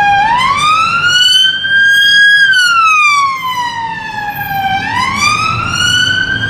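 Police car siren sounding a slow wail: the pitch climbs, falls and climbs again in long sweeps of about two and a half seconds each. A low traffic rumble runs underneath.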